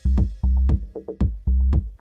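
Electronic dance music with a steady pounding bass beat, about two beats a second.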